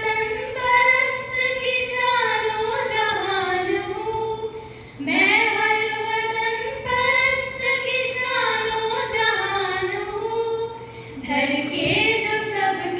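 Two girls singing a Hindi–Urdu verse unaccompanied through microphones, in long drawn-out phrases with slowly wavering held notes. The singing breaks briefly for breath about halfway and again near the end before the next phrase begins.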